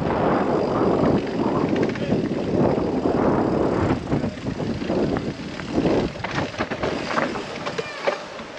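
Wind rushing over the microphone and tyres rolling over a dirt trail as a mountain bike descends, with the bike clattering over bumps. The rush eases about four seconds in, leaving scattered rattles and clicks.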